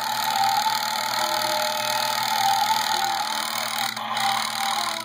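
Electronic engine sound effect playing steadily from a battery-powered yellow toy backhoe loader truck.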